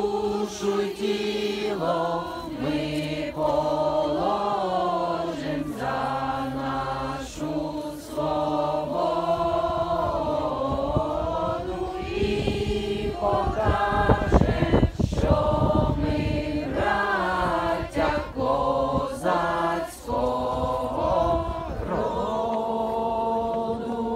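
A crowd singing a slow, solemn song together, holding long notes. About halfway through, a short burst of low rumbling noise is the loudest thing heard.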